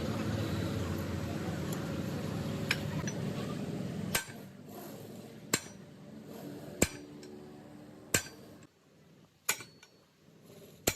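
Hammer striking metal: six sharp, ringing blows at an even pace of roughly one every second and a half. Before them there are about four seconds of steady low rumble.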